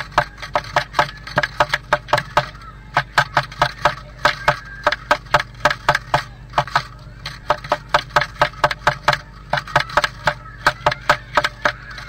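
Blue tit pecking at the inside wall of its nest box: rapid sharp taps at about five a second, in runs of a few seconds with short pauses between, over a steady low hum.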